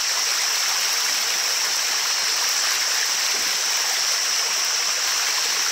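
A small waterfall of spring water running down a wet rock face: a steady rush of water.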